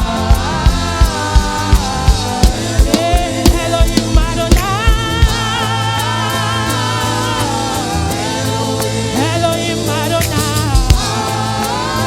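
Gospel worship music: singing voices over a band, with drum kit beats about three a second for the first five seconds or so, then long held notes over a steady low bass.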